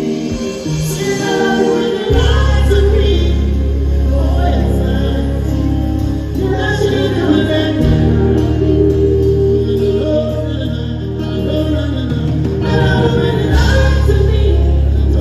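Amplified live music with a singer's voice over held chords. Deep bass notes come in about two seconds in.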